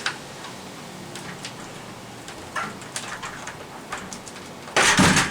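Screwdriver levering a spring-loaded screen roller wheel off a window screen frame: scattered small clicks and scrapes, then a louder half-second scraping rattle near the end.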